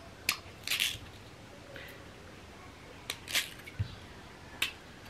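Kitchen knife cutting chunks off a peeled taro corm held in the hand, with no chopping board: about half a dozen short, crisp cuts at irregular intervals.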